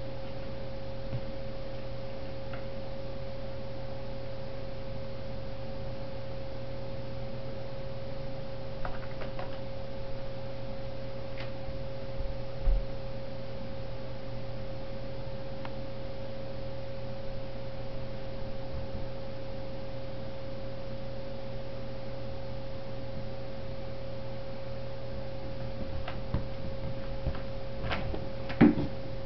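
Steady electrical hum with a clear high tone, broken by a few soft knocks and taps, the loudest near the end.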